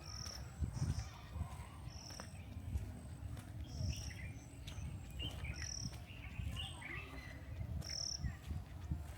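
Forest birds calling: a short high note repeats every second or two, with scattered lower chirps around it. Low, uneven thuds of footsteps on the trail sound underneath.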